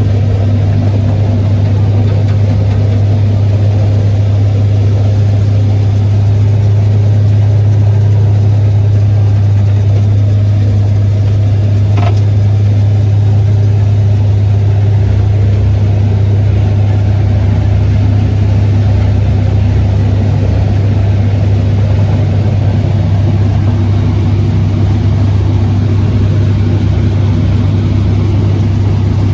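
Heavy farm machinery engine running steadily under load, a strong low drone throughout, with one brief sharp sound about twelve seconds in.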